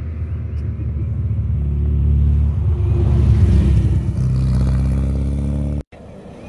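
Classic car engine running close by with a deep, steady note that swells about halfway through; it cuts off abruptly near the end to a quieter background.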